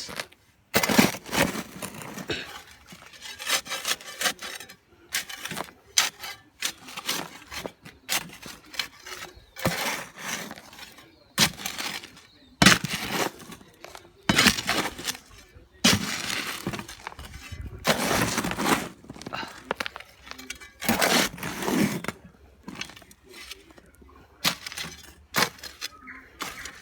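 Gravel aggregate and cement being mixed dry by hand: irregular gritty scrapes and crunches of stones as the mix is turned over, several strokes a second in uneven bursts.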